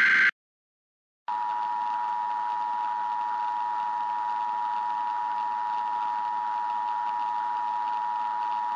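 Emergency Alert System broadcast: the tail of a digital SAME header burst cuts off, then after about a second of silence the EAS attention signal sounds, a steady two-tone alert (853 and 960 Hz together) lasting about eight seconds. It announces an emergency message about to be read.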